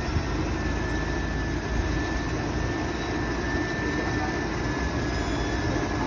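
An off-road SUV's winch pulling under load to haul the vehicle up a rock step: a steady high whine over the vehicle's running engine.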